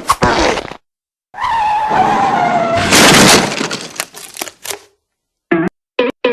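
Cartoon sound effects: a sharp hit, then a skidding screech that slides down in pitch into a loud crash of breaking and shattering, which dies away, followed by three short blips near the end.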